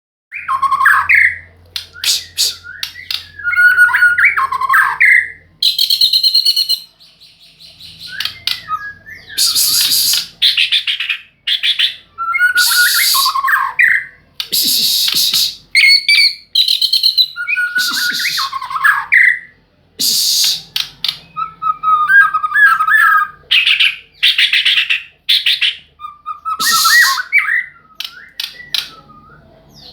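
A murai songbird singing loudly and close by in a long run of varied phrases. Whistled, sweeping notes alternate with harsh, rasping bursts, with short pauses between phrases.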